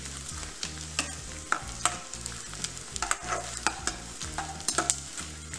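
Edible gum (gond) sizzling as it fries and puffs up in hot ghee in a kadhai, while a spatula stirs it and clicks and scrapes against the pan a few times a second.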